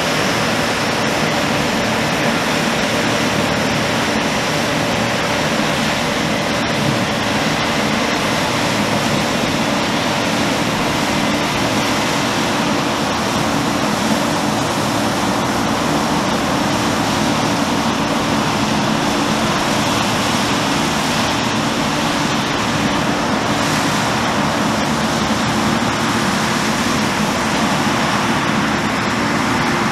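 New Holland CR1090 combine harvester working under load while harvesting: its engine and threshing machinery make a steady rush of noise with a constant whine running through it.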